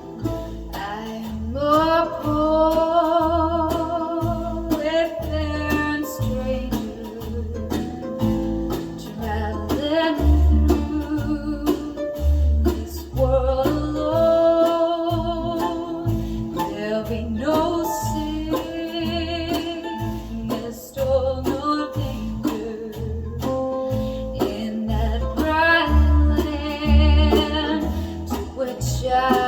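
A song played back through restored Pioneer CS-410 bookshelf speakers: a singer holds long notes with vibrato, in several phrases, over guitar and a pulsing bass line.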